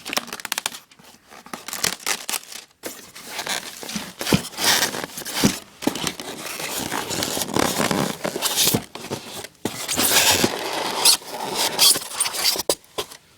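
Packaging being handled during an unboxing: irregular rustling, scraping and crinkling with scattered sharp clicks and knocks.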